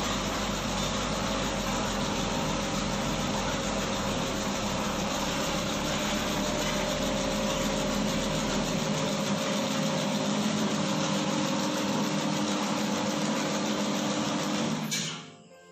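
Homemade stainless-steel dough mixer running under load: an electric motor turns the kneading blade through a V-belt and pulleys while it works a batch of donut dough. It makes a steady hum with a few held tones, and the sound cuts off suddenly near the end.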